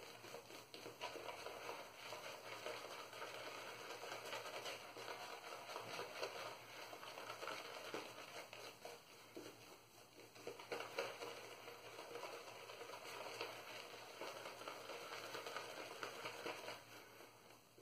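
Semogue Owners Club boar-bristle shaving brush scrubbing shaving-soap lather over the face, a faint continuous noise of bristles and lather that dips briefly about ten seconds in.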